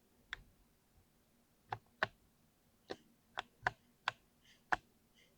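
Keys being pressed one at a time on a Ducky RGB mechanical keyboard with Cherry MX Speed switches: about eight sharp, irregularly spaced keystroke clicks, with a few softer taps near the end.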